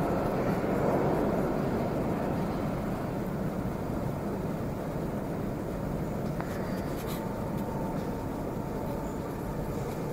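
Moscow Metro train rumbling away into the tunnel, its noise slowly fading to a steady low station hum.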